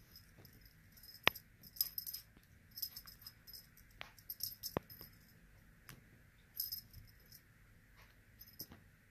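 Small jingling rattle shaken in short bursts, over and over, with a few sharp clicks between them.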